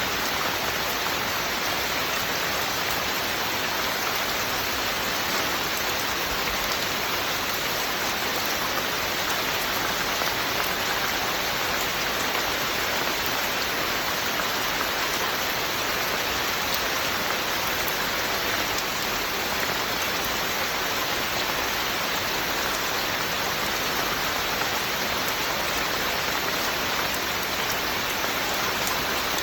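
Steady, even rain falling, with no breaks or single loud events.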